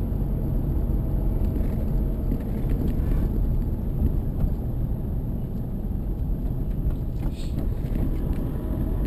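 Steady road and engine noise heard inside the cabin of a moving car, mostly a low rumble.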